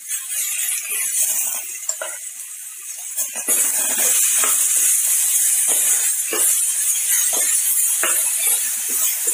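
Onion-tomato masala frying in a pan as a wet purée is added and stirred: a steady sizzle that grows louder about three and a half seconds in, with a metal spoon scraping and clinking against the pan in short repeated strokes.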